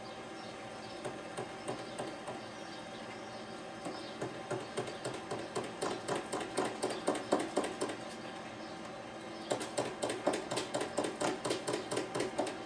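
Yorkshire pudding batter being beaten by hand in a plastic jug: rapid rhythmic taps of the utensil against the jug, about four a second. They start a few seconds in, pause briefly for about a second past the middle, then resume.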